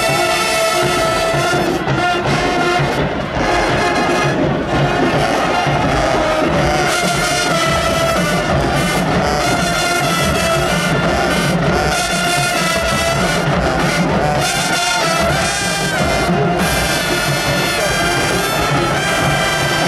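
Marching band brass section playing loud held and moving chords, trombones and trumpets together, over drums.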